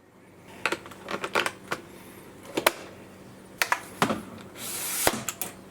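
Scattered light clicks and taps at irregular intervals, with a short rush of noise near the end.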